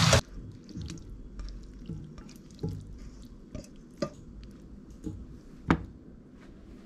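Loud, steady sizzle of a pork and vegetable stir-fry in a frying pan, cut off abruptly a moment in. After it come faint scattered clicks and ticks, the sharpest one a little before the end.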